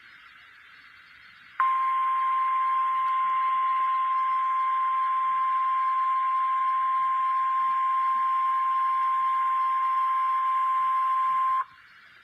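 NOAA Weather Radio 1050 Hz warning alarm tone: one steady tone held for about ten seconds, starting about a second and a half in and cutting off sharply. It signals that a warning, here a severe thunderstorm warning, is about to be read. Faint radio hiss before and after it.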